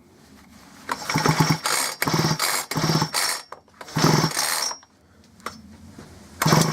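Two-stroke chainsaw's recoil starter cord pulled five times in quick succession, the engine spinning over freely with its spark plug out to check for a spark; each pull is a short fast whirr, the last near the end.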